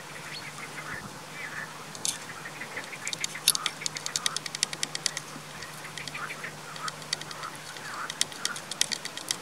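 Outdoor animal calls: short calls mixed with rapid runs of sharp clicks, one run in the middle and another near the end.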